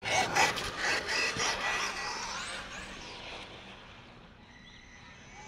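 Team Associated Rival MT10 electric RC monster truck speeding away: tyres scrabbling on gritty asphalt with a motor whine, loudest at the start and fading over the next few seconds as it pulls away.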